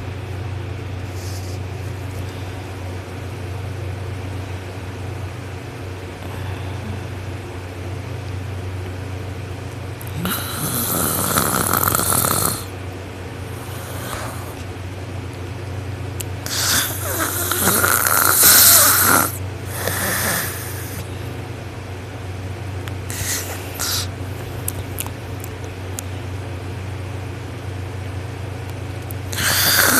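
A sleeping person snoring very loud and hard. The first ten seconds are quieter, then loud snores come about every six seconds over a steady low hum.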